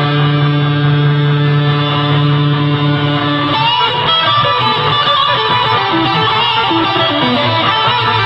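Electric guitar played through a custom three-in-one pedal combining a Big Muff–style fuzz and two experimental modulated reverbs. A long sustained note rings, then new notes come in about three and a half seconds in.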